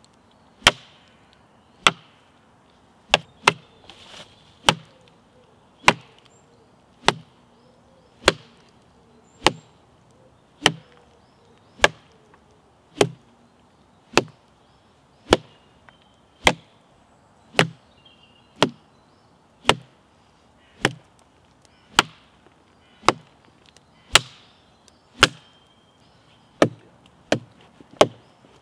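A large sawn tree trunk's cut face struck over and over with a hand-held implement: sharp wooden chopping blows, about one a second at an even pace, coming a little quicker near the end.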